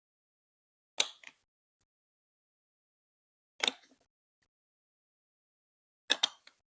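Plastic Lego Duplo bricks clacking as they are snapped together or set down: three separate clacks, each a quick double or triple click, a couple of seconds apart.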